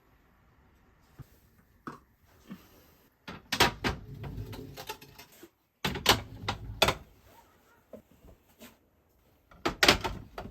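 Clacks and knocks of kitchen storage containers being handled and set down, in three clusters a few seconds apart, with a softer rustle between the first two.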